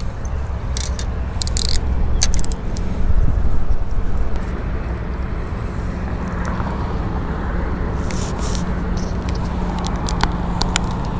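Steady low rumble of road vehicles or engines, with scattered sharp clicks and scrapes, bunched about one to three seconds in and again near the end.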